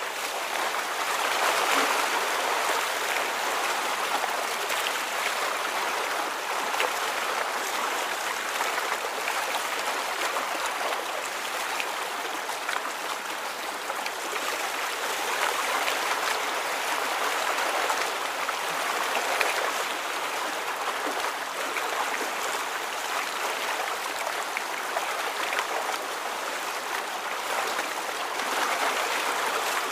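Steady rush of moving water with small trickling flicks, gently swelling and easing every few seconds.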